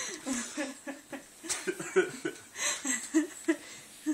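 People laughing in short, repeated bursts.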